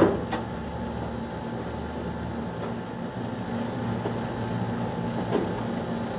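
Steady low background hum with a few sharp clicks and taps of metal, the loudest right at the start: screws and sheet-metal panels being handled as an AC outdoor unit is taken apart.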